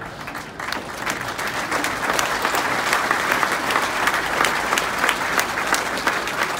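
Audience clapping in a large room, building about a second in and staying loud and steady.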